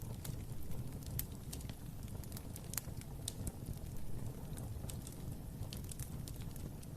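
Wood fire crackling in a fireplace: a steady low rumble of flame with sharp, irregular pops and snaps.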